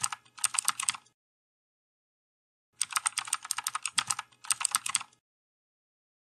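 Typing sound effect: quick runs of keyboard key clicks, about ten a second. They stop dead about a second in and start again nearly two seconds later.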